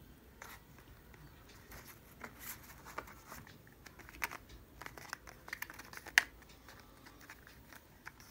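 Small white cardboard packaging box handled by hand: faint rustling and scraping with scattered light taps and clicks. The sharpest click comes about six seconds in.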